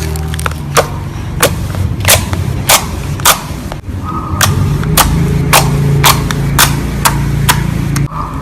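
A regular series of sharp, loud cracks, about one every 0.6 seconds, over a steady low drone that shifts pitch about halfway through.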